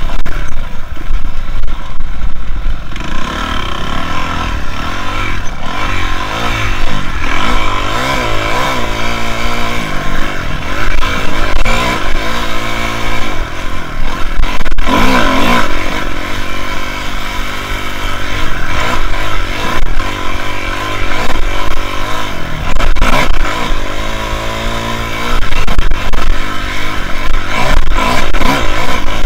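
2006 Kawasaki KX250F's single-cylinder four-stroke engine, loud, revving up and falling off again and again as the bike is ridden hard. A sharp knock comes about fifteen seconds in.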